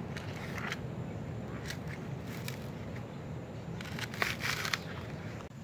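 Dry coconut husk being pried and torn off with a machete blade: scattered scratchy crunches of splitting fibre, with a louder cluster about four seconds in.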